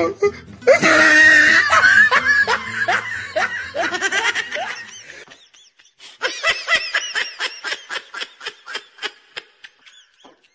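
Laughter in quick, high-pitched 'ha-ha' pulses. It is loud for the first five seconds, breaks off briefly, then comes back quieter as a fast run of short pulses until near the end.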